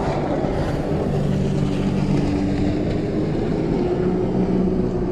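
Boat engine running steadily: a low drone whose pitch drifts slightly.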